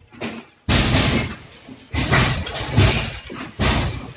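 Heavy hammer blows breaking concrete in house demolition, three of them about a second and a half apart, each followed by a rattling fade.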